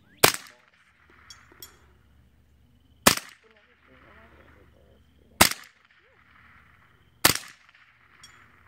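Four single shots from a scoped .22 Long Rifle rifle: sharp cracks two to three seconds apart, each with a short echo tail.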